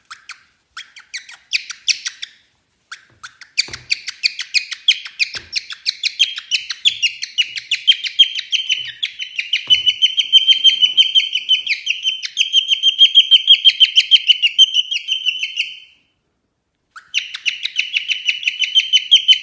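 A bird chirping: a long, fast run of short, high chirps, about five a second. It breaks off for a moment near the end and starts again.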